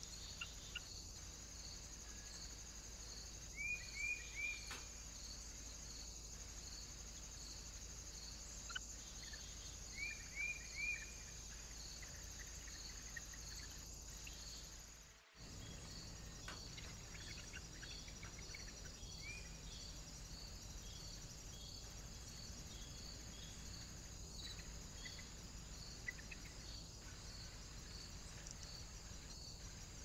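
Faint, steady chirping of crickets, an even high pulse about twice a second, with two short runs of three quick bird chirps in the first half. The sound drops out for a moment about halfway.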